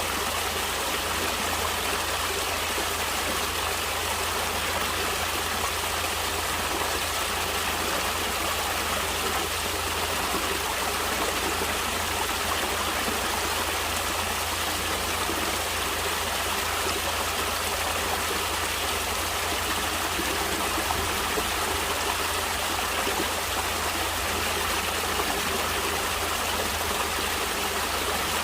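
Natural flowing water, a steady even rush with no breaks or single splashes.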